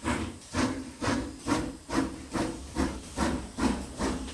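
Cartoon sound effect of a steam locomotive chuffing as it moves off. Rhythmic puffs of steam come a little over two a second, over a steady low rumble.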